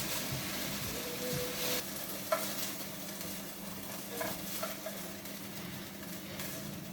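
Browned chuck steak sizzling steadily in hot oil in a pot, with a few short clinks of a utensil against the pan as the pieces are moved, the sharpest about two and a half seconds in.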